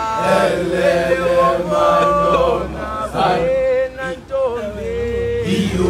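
A group of schoolboys singing a chant-like song together, unaccompanied, with held notes that slide between pitches.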